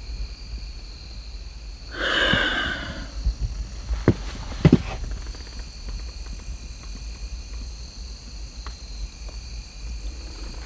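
Steady high chirring of night insects, with a louder scuffing noise lasting about a second from about two seconds in and two sharp clicks just after.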